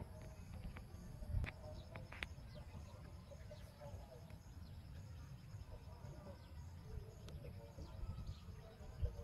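Faint rural outdoor ambience: birds chirping and insects trilling over a low wind rumble, with a few soft clicks about one and a half and two seconds in.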